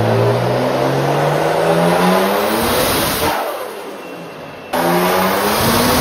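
Turbocharged BMW M50/M52 straight-six in an E36 making a wide-open-throttle dyno pull, its note rising steadily in pitch. About three seconds in the engine lets off and the sound falls to a hiss. Near the five-second mark another pull cuts in, already rising in the revs.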